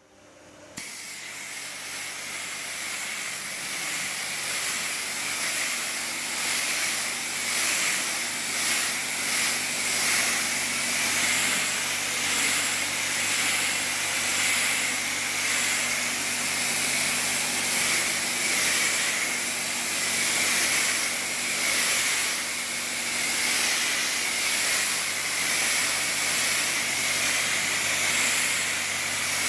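High-pressure water spray from a touchless car wash hitting the car: a loud steady hiss that builds over the first few seconds, swelling and easing every couple of seconds as the jets sweep over it, with a thin steady tone running through it.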